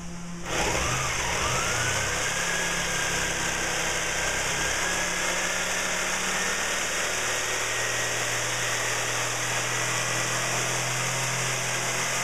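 Electric jigsaw switched on about half a second in, its motor whining up to speed, then running steadily as its blade saws through a wooden batten.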